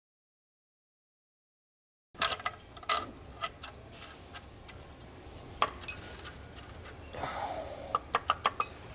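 Silent for about two seconds, then metal clicks and clinks of hand tools and a steel bolt and spacer against the steel power steering bracket. Near the end comes a quick run of ticks, about five a second, from a ratchet wrench.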